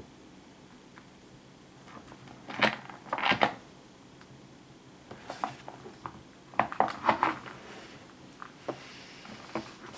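Scattered knocks, scrapes and rattles of small objects being bumped as a Nile monitor lizard clambers over clutter on a desk. There are two busier flurries, about three and seven seconds in.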